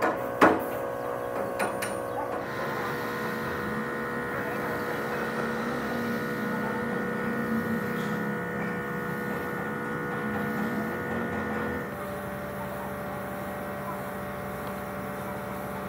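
A few sharp knocks, then a steady machine hum made of several even tones that changes to a different, slightly quieter hum about twelve seconds in.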